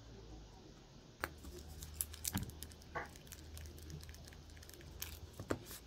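A vinyl eraser rubbing over drafting paper to lift leftover ink, heard as faint, irregular small scratches and ticks starting about a second in.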